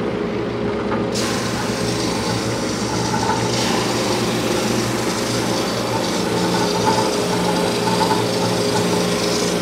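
Wide-belt sander running with a steady motor hum. About a second in, an oak panel starts feeding through and the hiss of abrasive on wood comes in over the hum and carries on.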